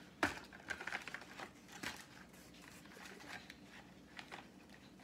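Crayons and a cardboard crayon box handled on a tabletop: a sharp knock about a quarter second in, then light clicks and rustling that thin out to small ticks.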